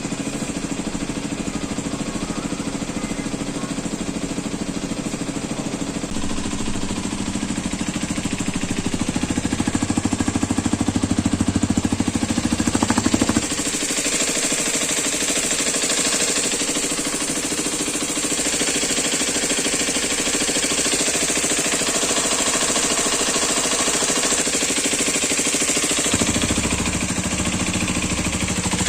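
Hero Xpulse 210's single-cylinder engine running with a rapid knocking clatter, which the owner calls an engine knocking sound. The deep part of the sound drops away about halfway through while a hiss rises, and the deep part returns near the end.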